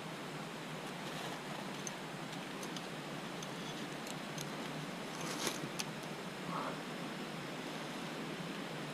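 Steady background hiss with scattered light clicks and taps from hands working on a bent bicycle rear derailleur, with two sharper clicks about five and a half seconds in.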